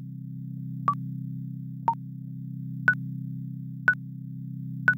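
Countdown timer beeping: five short electronic beeps, one a second, over a steady low hum. The last three beeps are higher in pitch than the first two.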